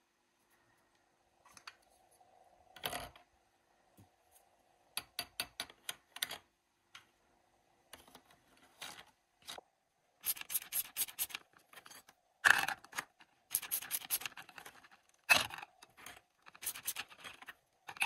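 Hard plastic toy pieces clicking and knocking together as toy vegetables and a plastic pot are handled on a toy kitchen. The clicks come in scattered runs of quick taps, with a few sharper knocks in the second half.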